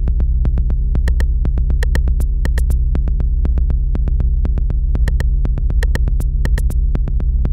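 Experimental electronic music: a steady low synthesizer drone under a dense, uneven stream of sharp electronic clicks.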